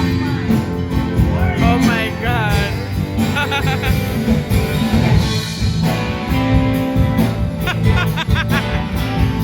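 Music with a singing voice, a steady beat and a bass line, likely a soundtrack laid over the footage.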